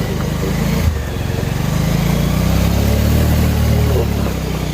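Single-cylinder motorcycle engine pulling under load on a rough track, its revs climbing about two seconds in and easing off again near the end.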